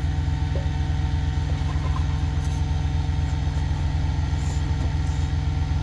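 An engine idling with a steady, even low rumble.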